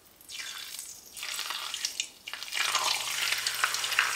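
Hot oil in a frying pan sizzling as a whole seasoned fish is lowered in: two short bursts of sizzle at first, then from a little past halfway a steady, louder sizzle as the fish is laid down in the oil.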